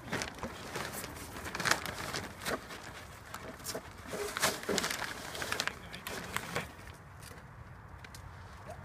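Hang glider sailcloth rustling and crinkling in short, irregular bursts as the sail is handled, quieter for the last second or two.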